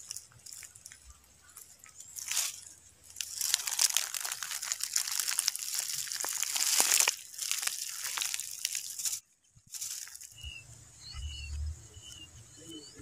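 Dry leaf litter crunching and crackling for several seconds as something moves through it. After a short break near the end come a few short, high bird chirps over a low rumble.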